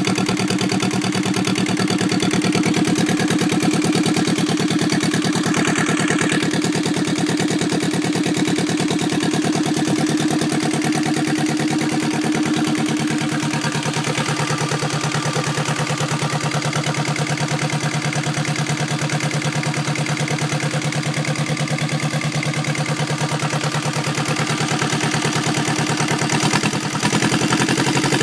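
Yanmar 2GM two-cylinder marine diesel engine running steadily on a test stand, a rapid, even beat of firing pulses. Its note changes briefly near the end.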